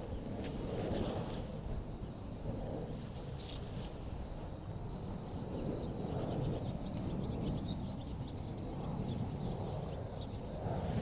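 A bird repeating a short, high chirp about every two-thirds of a second, over a steady low background rumble.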